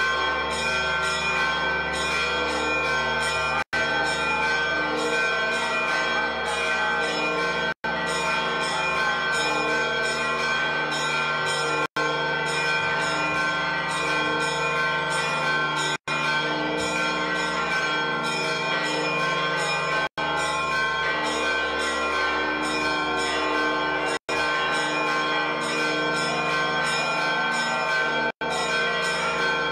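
Church bells ringing a fast, continuous festive peal of many overlapping strikes. Brief dropouts cut into the sound about every four seconds.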